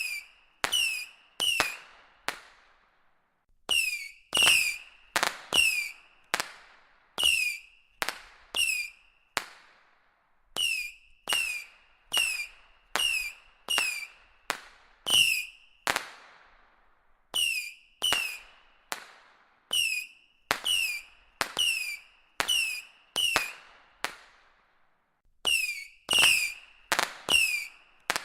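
A box of whistling firework rockets firing shot after shot. Each shot is a sharp crack with a short whistle that falls in pitch, about one to two a second, with a few brief pauses.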